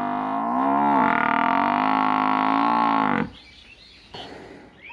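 Water buffalo mooing: one long call with a dip in pitch about a second in, ending abruptly about three seconds in, followed by a short soft breathy noise.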